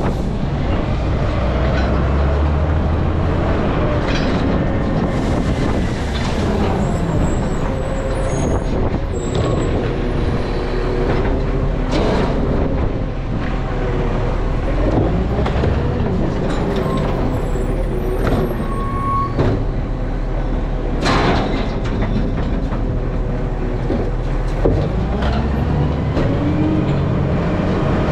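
Garbage truck's diesel engine running, its tones rising and falling, with a few short sharp noises, the strongest about three-quarters of the way through.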